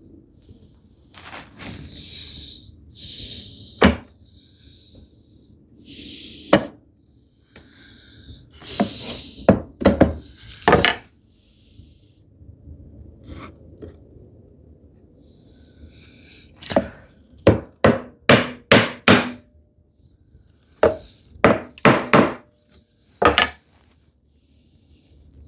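Chisel paring end grain on a tenon shoulder: hissing scraping cuts and sharp knocks on the wood. Near the middle and toward the end come quick runs of four or five knocks.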